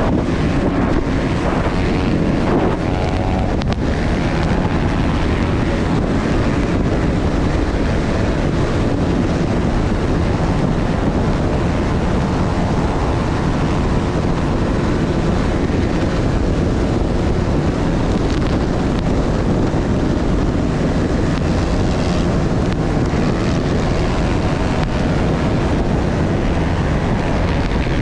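Beta 300 RR two-stroke enduro motorcycle running at speed on sand, heard through heavy wind buffeting on the onboard camera's microphone. The loud, steady wind noise largely buries the engine.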